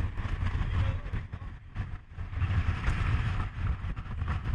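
Wind buffeting the microphone on an open boat at sea, an uneven gusting rumble with a hiss of water and spray over it.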